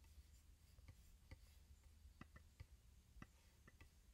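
Near silence: faint room tone with a low hum and a few faint, irregular clicks.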